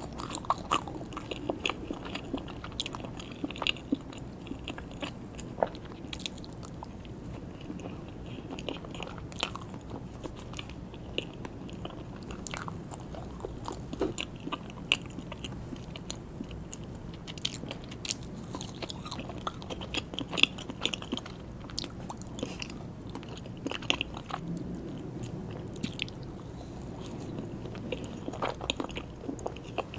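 Close-up eating sounds of someone chewing soft cake with buttercream, with many small, irregular clicks from the mouth.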